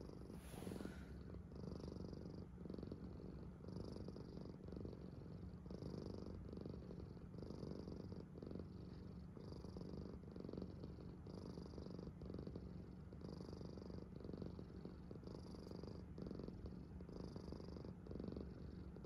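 Domestic cat purring steadily, swelling and fading with each breath in and out.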